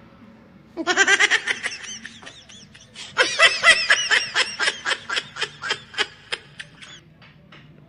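High-pitched laughter in two bouts, quick pulsed 'ha-ha' bursts, the second bout long and trailing off into sparse short pulses.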